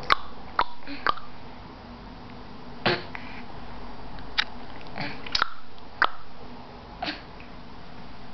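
A baby making sharp clicking noises, about ten single clicks at uneven intervals, a few of them bunched together around the middle.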